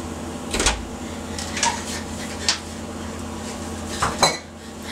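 A few light knocks and clicks, then a door opening about four seconds in, over a steady low hum.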